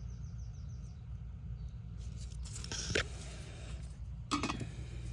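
Steady low outdoor rumble, with a quick high bird trill of rapid chirps during the first second, then two short scraping rustles, one around the middle and one near the end.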